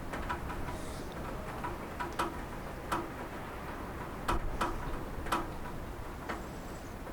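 Rain on a roof: heavy drops strike at irregular intervals, about one or two sharp ticks a second, over a steady light patter.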